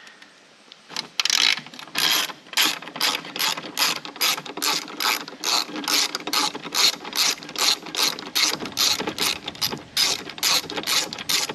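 Small hand ratchet with a T40 Torx bit clicking in short repeated strokes, about three a second, as it loosens a bolt. The clicking starts about a second in.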